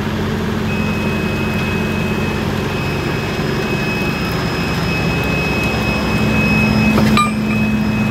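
Truck's diesel engine running, heard from inside the cab, with a thin steady high whine over the low drone. The engine grows slightly louder and then drops back with a sharp click about seven seconds in.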